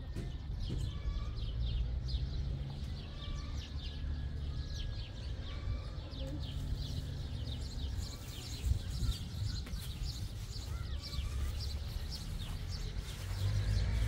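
Small birds chirping over and over, short high calls throughout, above a steady low rumble.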